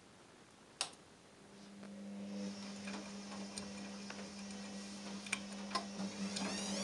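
Gorenje front-loading washing machine starting its spin: a sharp click about a second in, then the drum motor's steady hum comes in and grows louder, with a few light clicks as the drum turns the plush toy. Near the end a whine begins to rise as the drum speeds up.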